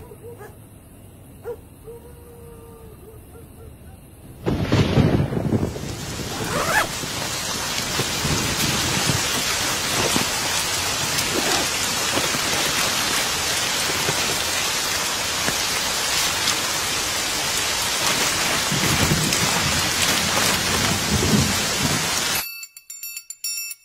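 Thunder cracks suddenly about four and a half seconds in and is followed by heavy rain pouring steadily, with low rumbles of thunder under it; the rain stops abruptly near the end.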